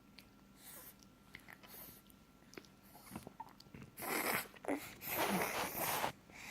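Pig-like snorting noises made through the nose: a short breathy snort about four seconds in, then a longer snort lasting about a second, after a few faint clicks.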